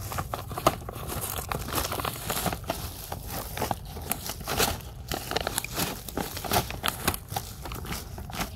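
Dry bamboo leaf litter rustling and crackling, a stream of irregular small crunches as it is stepped on or pushed through.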